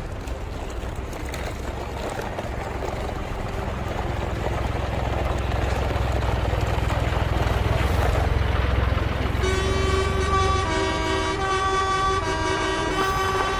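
A vehicle engine rumble that slowly grows louder, then gives way about ten seconds in to a run of short, clear tones that step between pitches, like horn toots or a simple tune.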